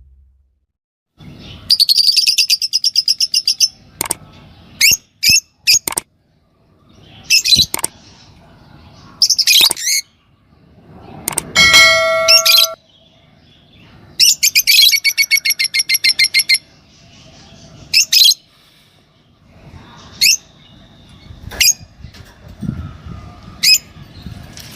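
A pair of normal green Fischer's lovebirds chirping: rapid high chattering runs lasting a second or two, sharp single squeaks between them, and one brief steady ringing tone about halfway through.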